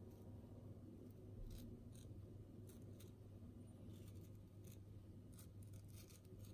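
Faint, irregular crisp clicks of a small knife cutting through a tomato's skin, over a low steady hum.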